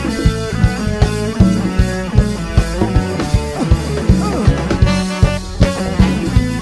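Live Latin fusion band playing an instrumental passage: drum kit keeping a steady beat under bass, guitars and keyboard.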